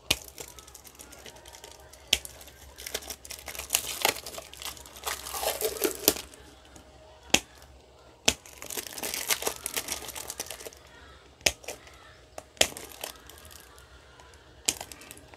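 Balance-lead wires on an 18650 lithium-ion battery pack being cut: a series of sharp snips, one every second or two. Between them come stretches of rustling and tearing as the wiring and its plastic tape and wrap are pulled away.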